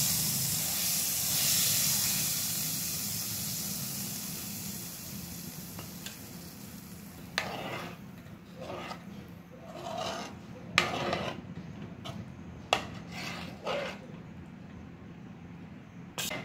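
Hot ghee tempering with cumin and spices sizzling as it is poured onto the kadhi, a loud hiss that fades away over the first several seconds. Then a steel spoon stirring through the kadhi in a metal pan, with scattered scrapes and a few sharp clinks against the pan.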